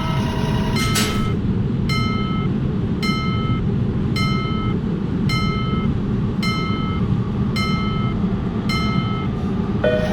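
Railroad crossing warning bell chiming kan-kan at an even beat, about once a second, over the steady low rumble of a passing train. About a second in there is a brief rushing noise as a faster, different bell pattern stops.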